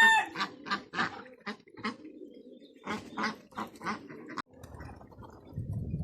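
Domestic ducks quacking: a run of short calls, a pause of about a second, then another run. A rooster's crow trails off right at the start.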